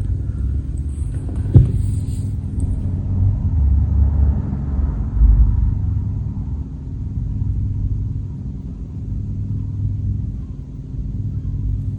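Engine running with a steady low rumble and a faint constant hum, and a single sharp knock about a second and a half in.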